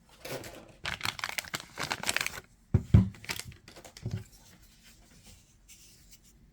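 Packaging being unwrapped by hand: paper and plastic crinkling and tearing for about two and a half seconds, then two knocks, about three and four seconds in, as the box is handled; faint handling noise after that.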